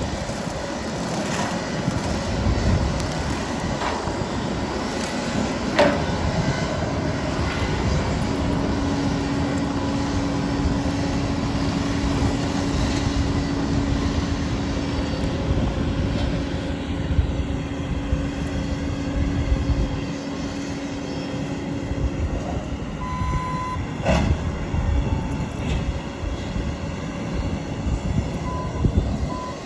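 Bobcat T770 diesel skid steer running with its hydraulic brush cutter, a steady mechanical rumble with a held hum through the middle and a couple of sharp knocks.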